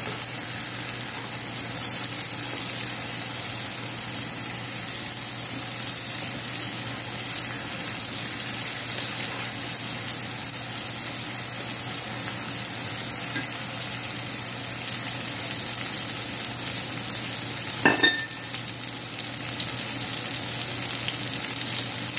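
Diced onion, green chili and tomato sizzling steadily in melted butter in a frying pan, stirred with a wooden spatula. About 18 seconds in, two sharp knocks sound in quick succession.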